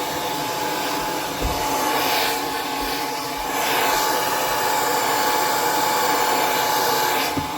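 L'ange hair dryer running: a rush of air with a steady whine. It grows louder about halfway through and drops back just before the end.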